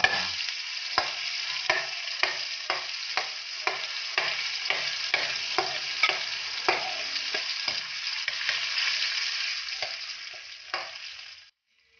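Belacan (shrimp paste) sizzling in hot oil in a non-stick wok, with a metal ladle tapping and scraping the pan as it mashes the paste, giving sharp irregular clicks over the steady sizzle. The sound fades and cuts off shortly before the end.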